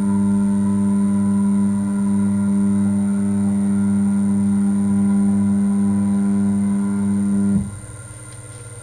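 A CNC router's motor runs with a steady pitched hum, then cuts off abruptly about seven and a half seconds in. A quieter, higher-pitched hum starts near the end.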